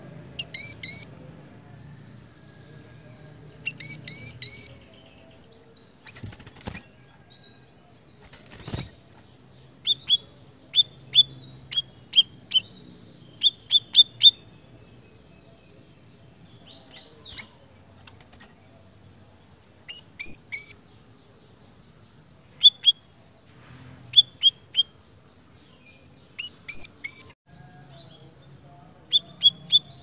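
A caged siri-siri bird calling in quick clusters of two to four sharp, high chirps, a cluster every few seconds. There are two dull thumps in a pause in the calling.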